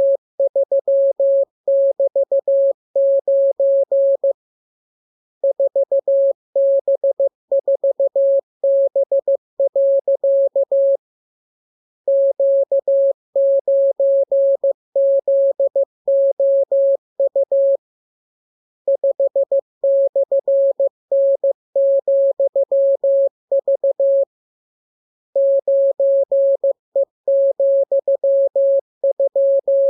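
Morse code (CW) sent as a single mid-pitched beep tone, keyed in quick dots and dashes. The characters come in groups of about six seconds each, with a pause of about a second between groups: a practice radiogram of mixed letters, figures and punctuation for learning to copy by ear.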